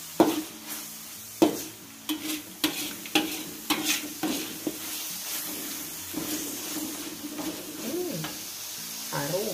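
Metal spatula scraping and knocking against a wok while stirring rendang spice paste frying in oil, with a steady sizzle; the paste is being cooked until fragrant. Several sharp knocks come in the first four seconds, then softer scraping.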